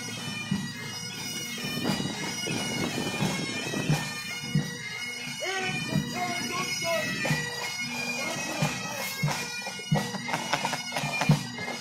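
Bagpipes playing, their drones held steady under the chanter.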